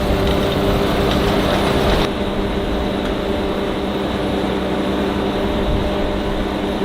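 Heavy diesel farm machinery running steadily, with a constant engine drone and mechanical noise. The sound changes abruptly about two seconds in and turns duller.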